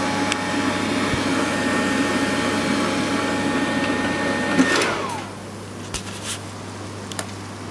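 Tefal ActiFry air fryer's fan running steadily with a faint whine, then winding down about five seconds in with a falling whine. A quieter low hum and a few light clicks follow.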